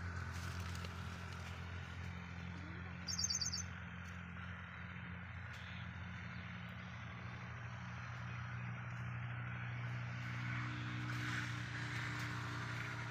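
Outdoor ambience: a steady low motor or engine hum, with one short burst of rapid, high bird chirps about three seconds in.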